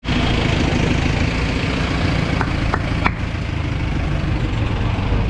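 Steady low rumble of an idling engine, with three short sharp clicks close together about halfway through.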